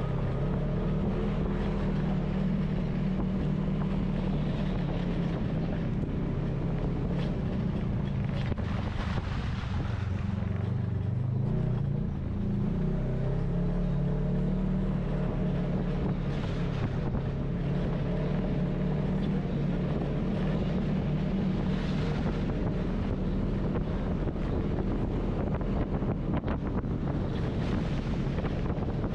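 Polaris RZR side-by-side's engine running steadily under way, its note dropping briefly about ten seconds in and then climbing again, with wind buffeting the microphone.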